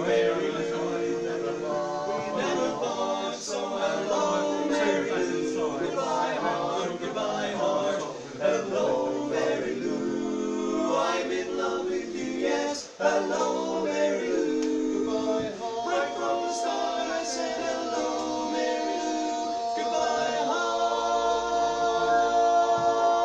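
A male vocal quartet singing a cappella in close four-part harmony. From about twenty seconds in they hold one long chord that swells louder toward the end: the song's final chord.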